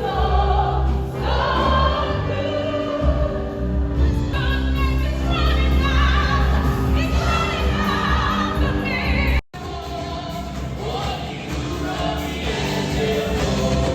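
Background music: a song with singing voices over a heavy bass. It cuts out for an instant about two-thirds of the way through, then carries on.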